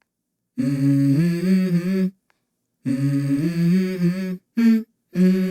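Hummed vocal melody, the intro of a song, in a few phrases broken by short silences.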